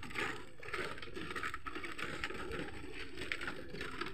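Footsteps on a bamboo-slat walkway, the slats creaking and crackling underfoot about twice a second as several people walk along it.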